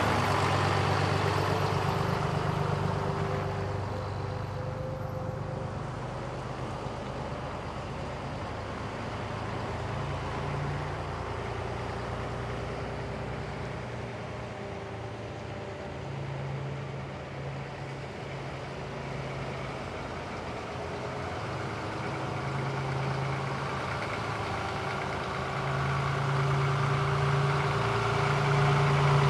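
Scania G 82 M ladder truck's eight-litre six-cylinder diesel engine running as the truck drives away and circles back: the engine sound fades as it draws off through the middle and grows louder again as it returns near the end.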